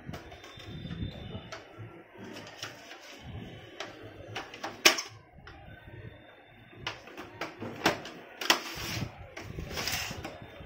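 Plastic clicks and knocks from a Canon LBP2900B laser printer's casing being handled: a sharp snap a little before halfway as the top cover is shut, then several clacks and scraping in the second half as the printer is lifted and tipped onto its side on a wooden bench.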